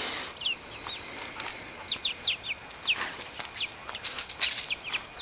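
Young chickens peeping: many short, high calls that slide downward in pitch, a few each second, with short scratchy rustles among them.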